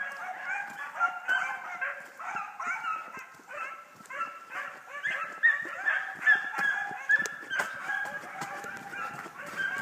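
A pack of hounds baying and bawling in chorus on a run, many voices overlapping in a steady stream of short calls.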